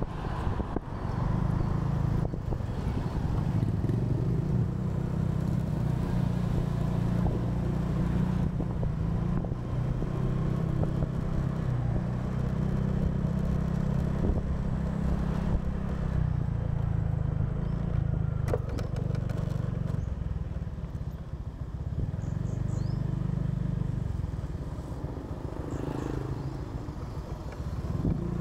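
Honda single-cylinder motor scooter engine running steadily while riding along a road, heard from the rider's seat, with a low, even drone throughout.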